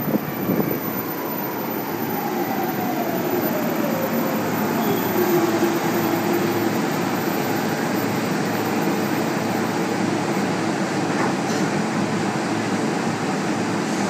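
JR Yamanote Line electric commuter train braking to a stop at the platform: its motor whine falls steadily in pitch over the first five seconds or so. After that comes the steady hum of the train standing at the platform, with a brief click about eleven seconds in.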